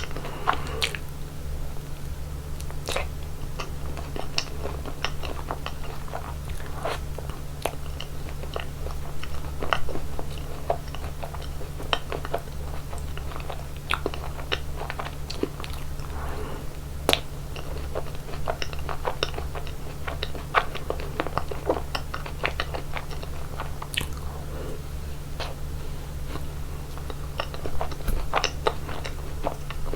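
Close-miked eating of chocolate ice cream: crunchy bites and chewing, with sharp crackles and clicks at irregular moments, over a steady low hum.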